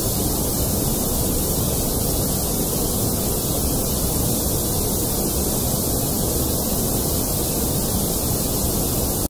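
A steady, unchanging hiss of rushing noise, like static, that cuts off abruptly at the end. It is a made-up sound effect presented as the 'sound' of Jupiter's small moon S/2003 J 2.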